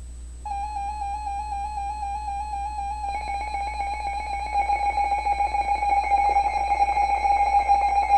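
Warbling electronic alert tone, a single held pitch with a slight fast wobble, starting about half a second in. About three seconds in a harsher buzzing layer joins it, and it gets louder.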